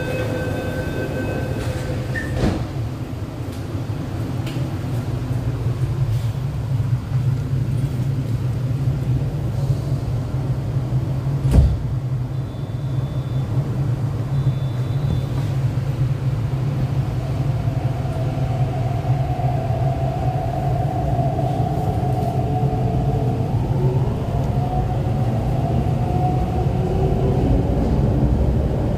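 MTR East Rail line R-Train from inside the car: a short beep tone at the start, then the train running with a steady low rumble. A single thump comes about twelve seconds in, and in the second half a whine from the traction equipment whose pitch shifts as the train gets under way.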